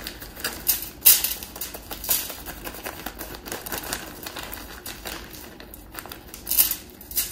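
Crinkling rustle of a plastic bag of brown sugar being squeezed by hand, with clumps of sugar falling onto crinkly aluminium foil. Irregular crackles and rustles, the sharpest about a second in, at two seconds and near the end.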